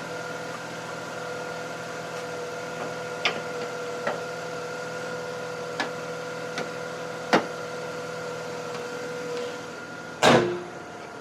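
Mazda RX-8's twin-rotor Renesis rotary engine idling with a steady hum, with several light clicks and one loud sharp knock about ten seconds in.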